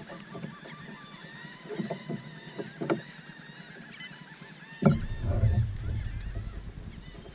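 A flock of birds calling over the water, many short overlapping calls. A few light clicks come in the first three seconds, and a sudden heavy low thump lands about five seconds in.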